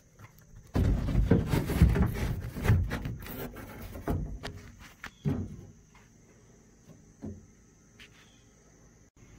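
Rubbing and scraping on weathered plywood right at the microphone, loud and crackly for about three seconds from just under a second in, then fading, followed by two softer knocks. A faint steady high tone sits underneath.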